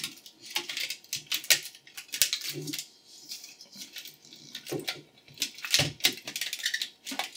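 Plastic diffuser wrap being peeled off a cracked glass LED tube, with irregular crackles and clicks from the shattered glass and the film pulling away.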